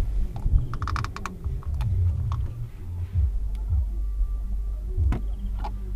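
Small clicks and taps of hands working the greased rubber boot and its clamp on the left end of a Mazda 6's steering rack, with a quick run of clicks about a second in.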